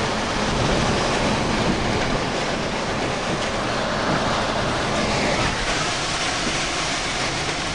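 Steady, loud rush of severe-storm wind and heavy rain buffeting a vehicle, heard from inside the cab.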